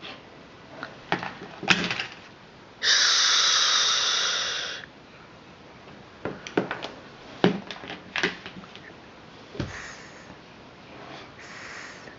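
A drawn-out "shhh" hiss about two seconds long, the "sh" of the Ling six-sound hearing check. Around it are scattered light clicks and knocks of small toy objects being handled and dropped into a basket.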